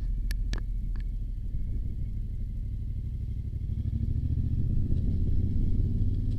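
Motorcycle engine running steadily under way, a deep low rumble that grows louder about four seconds in, with three sharp clicks in the first second.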